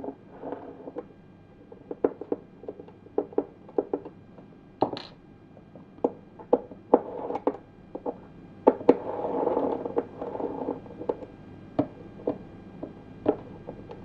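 Irregular small clicks and taps of a metal hex key and screw against a hard painted model-plane wheel spat as it is handled and fitted, with a short stretch of rubbing noise about nine to ten seconds in.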